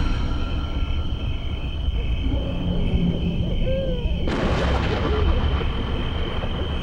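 Layered horror ambience: a low rumbling drone under a steady high tone, with owl hoots now and then. About two-thirds of the way in, a loud hissing rush comes in abruptly and runs on to the end.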